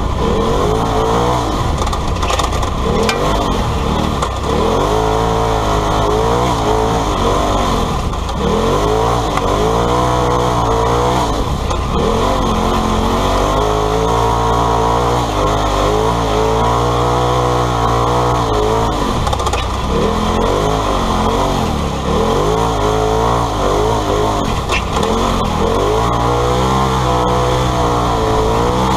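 Polaris RZR side-by-side's engine heard from inside the cockpit, the revs rising and falling over and over as it is driven hard through bends.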